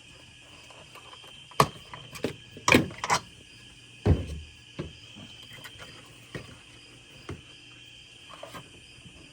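Steady high chirring of insects, with a scattered run of sharp clicks and knocks and one low thump a few seconds in.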